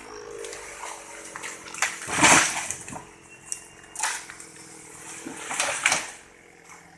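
Small chainsaw ticking over at idle after being throttled down from a cut. Three loud bursts of rushing, crackling noise come about two, four and six seconds in.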